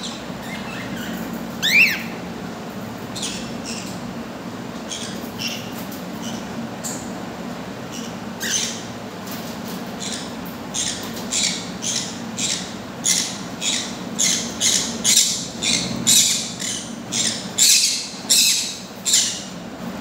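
A cockatiel gives one short rising chirp about two seconds in. From about eight seconds, the cockatiels at a corn cob make a run of short, harsh, noisy sounds, more than one a second, growing louder.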